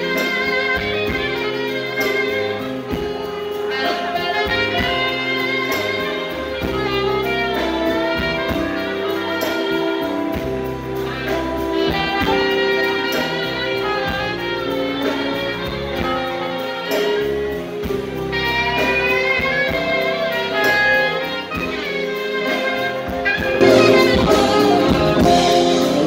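Live band playing an instrumental passage, a saxophone carrying the melody over bass guitar and drums, growing louder near the end.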